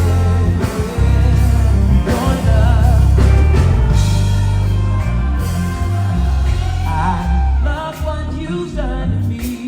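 Live gospel band playing: a Fender Jazz bass holds strong low notes that change every second or so, under drums and singing with wavering, vibrato-like lines.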